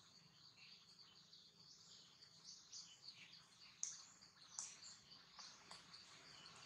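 Faint forest ambience: birds chirping over a steady high drone of insects, with a few short, sharp chirps standing out about four seconds in.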